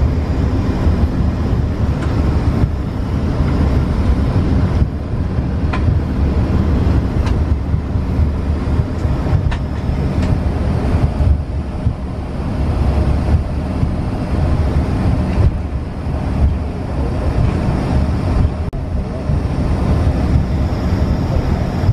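Cabin noise inside an Embraer ERJ-135 regional jet taxiing: a steady low rumble from its two rear-mounted Rolls-Royce AE 3007 turbofans at taxi power, with a faint whine and a few light clicks.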